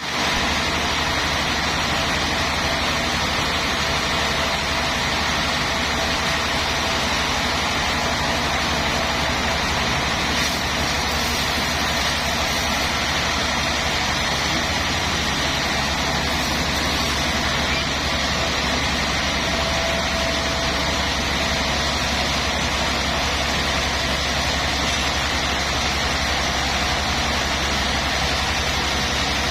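Sawmill machinery running: a steady engine drone with a strong low hum that holds at one level throughout.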